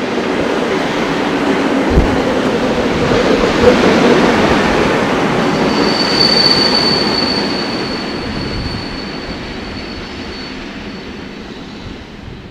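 EN57 electric multiple unit passing close by: a loud rumble of wheels on rail that builds, with a single thump about two seconds in. About halfway through, a thin high-pitched squeal sets in and fades, and the rumble dies away as the train draws off.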